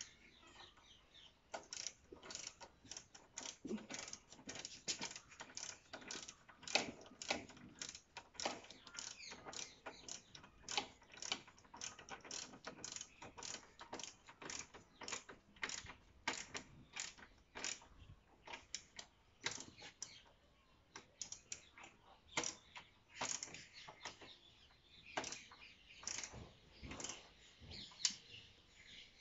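Ratchet wrench clicking in short runs of strokes as it tightens the lower mounting bolt of a motorcycle radiator guard.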